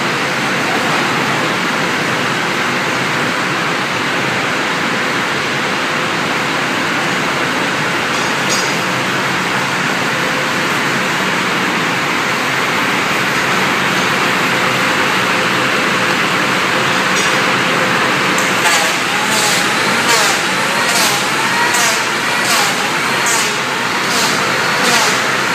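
Roller-type veneer dryer running with a loud, steady rushing machine noise. From about two-thirds of the way in, a regular light ticking or scraping beat, about once every 0.7 s, joins it.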